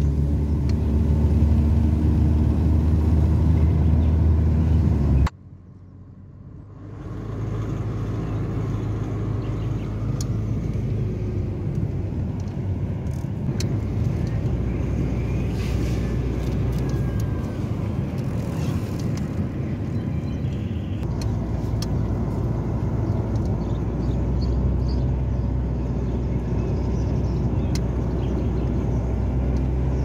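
Car engine and tyre noise heard from inside the cabin while driving on an asphalt road. The sound drops out abruptly about five seconds in and comes back a second or two later as a steadier, quieter running noise.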